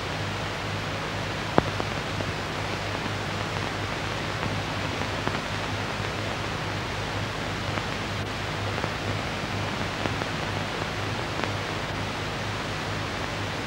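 Steady hiss and low hum of an old film soundtrack, with a few faint clicks; the sharpest click comes about a second and a half in.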